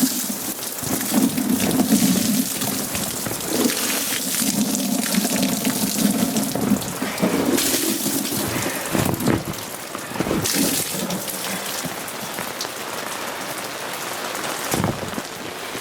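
Rain falling steadily, with several louder rushes of noise over the first eleven seconds or so.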